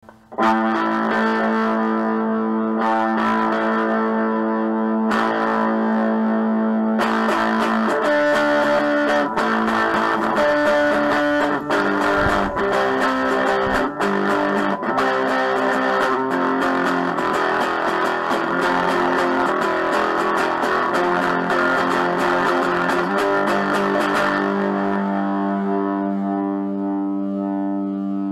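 Instrumental music on distorted electric guitar: held chords with picked notes over them, busier through the middle, thinning out to one sustained chord that rings near the end.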